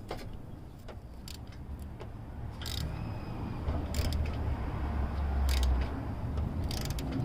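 Scattered metallic clicks and scraping from a socket wrench on an extension tightening a new oxygen sensor into its threaded port, over a low rumble that swells in the second half.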